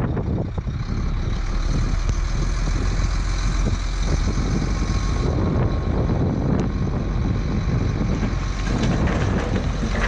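Diesel engine of a loaded SHACMAN F2000 dump truck running as the truck moves and stops. Its tipper bed starts to rise near the end.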